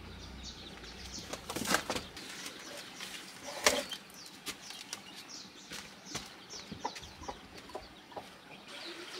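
Small birds chirping again and again in short, quick falling chirps, with a few sharp knocks or rustles over them, the loudest a bit under four seconds in.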